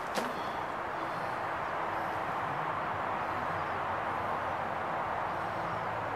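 Steady background hiss, strongest in the middle range, with a light tap just at the start.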